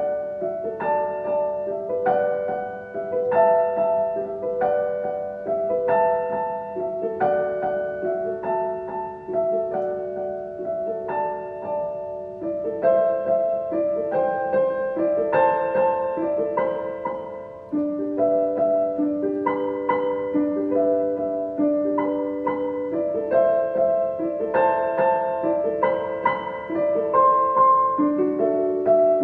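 Solo piano playing a slow piece: melody notes over repeated chords in an even rhythm, with a short dip in loudness near the 18-second mark.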